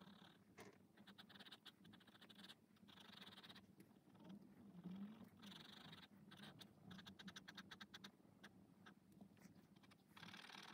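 Fine pen scratching on sketchbook paper in quick hatching strokes, several a second, in short faint runs with brief pauses between them.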